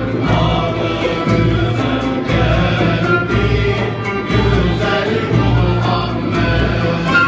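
Male choir singing in unison to a Turkish ensemble of oud, kanun, end-blown flute, violin and a steady frame-drum beat.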